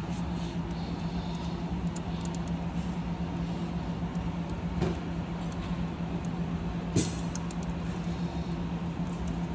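Steady low hum of background machinery, with two short metallic clicks, about five and seven seconds in, as parts of the dismantled engine's valvetrain are handled.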